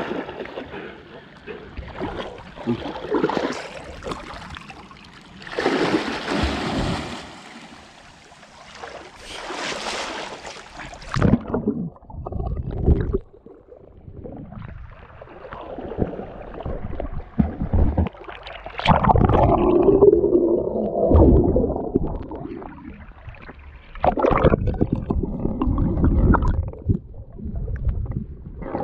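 River water splashing, sloshing and gurgling around a camera held at the surface and dipped under it, in irregular surges with muffled stretches, with a dog swimming close by.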